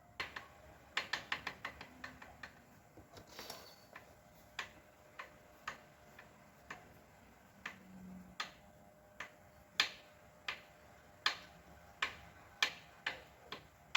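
Sharp metallic clicks from the No. 2 piston of a Hyundai G4NB 1.8 engine knocking in its cylinder bore as it is moved. There is a quick cluster about a second in, then single clicks every half second or so. The knock is heavy, a sign of a loose, scuffed piston, which the mechanic suspects is the engine's rattle.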